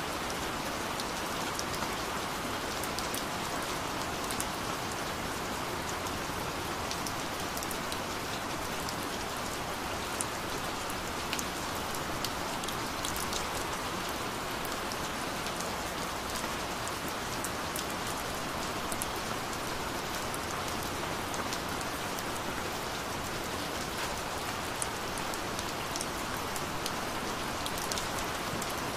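Gentle rain falling steadily: an even hiss with many small, sharp drop ticks scattered through it.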